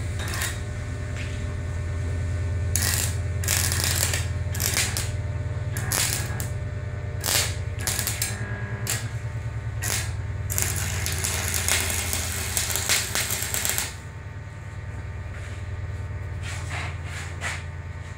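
Stick welder humming steadily while the electrode is struck on the steel again and again, giving short crackling bursts of arc, then a few seconds of continuous crackle near the end before only the hum is left. The rod's worn tip is being struck to get it ready for welding again.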